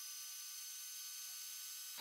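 Metal lathe cutting an aluminium workpiece with a carbide tool: a steady cutting hiss with a whine of several steady high tones as chips peel away.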